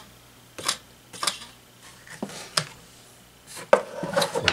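Scattered light clicks and knocks of the plastic fan housing and blades being handled and shifted on a wooden workbench, with one sharper knock just before the end.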